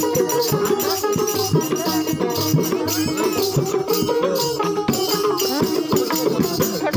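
Live folk music: a shaken rattle-type percussion keeps a steady rhythm under a wavering melody and a held drone.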